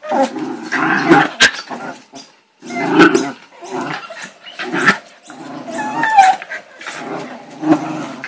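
Miniature schnauzers growling and snarling as they wrestle in rough play, in repeated bouts with a short pause a little over two seconds in. A few sharp clicks are heard among the growls.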